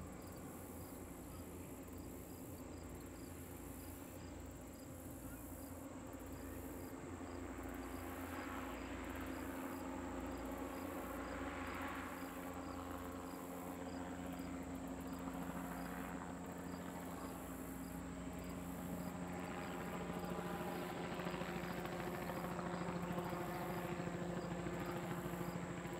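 Propeller engines of the Goodyear airship Wingfoot One, a Zeppelin NT, droning steadily as it flies past overhead. The drone grows louder over the second half.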